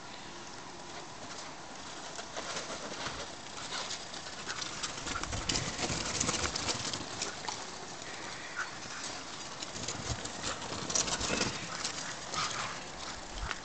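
Irregular crunching and clicking of footsteps and movement in snow, with a few dull thumps, busiest from about five to seven seconds in and again around eleven seconds. A few brief higher-pitched sounds are mixed in.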